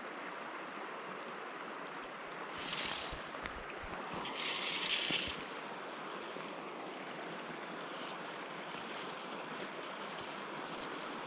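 Steady rush of river water with some wind on the microphone, broken by two short hissing swishes, the second louder, about three and five seconds in.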